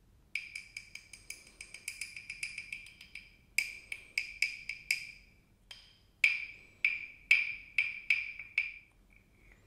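Hollow carved wooden frog percussion toy played with its wooden stick: a fast run of ringing wooden clicks for about three seconds, then separate knocks, each ringing at the same hollow pitch, spaced about half a second apart near the end.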